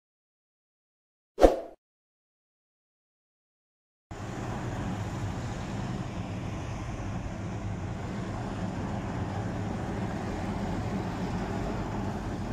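A brief sound-effect click about a second and a half in, then silence. From about four seconds in, the steady low rumble and hum of a truck's engine, heard from inside its cab, with heavy trucks working outside.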